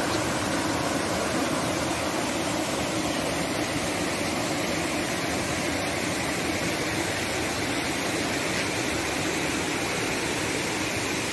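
Stream water rushing steadily over small rock cascades and falls.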